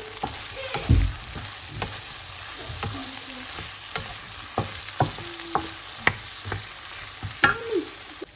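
Food sizzling in a frying pan while it is stirred, the utensil knocking against the pan at irregular intervals.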